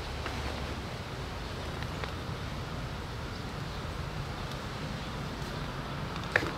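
Steady low outdoor rumble with wind noise on the microphone, and a single sharp click near the end.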